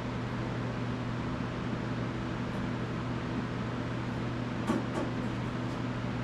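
Steady machine hum with a constant low tone and a noisy background. There are two faint clicks near the end.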